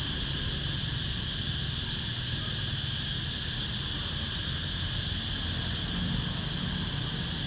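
Steady outdoor ambience: a constant high-pitched drone over a low rumble, with no distinct events.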